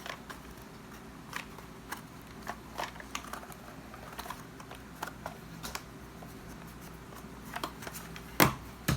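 Scattered light clicks and taps of the Dyson roller attachment's hard plastic housing being handled and worked on with a tool, with one sharper knock near the end.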